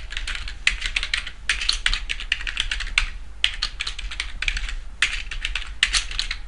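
Typing on a computer keyboard: quick, uneven runs of keystrokes with short pauses between them as a sentence is typed.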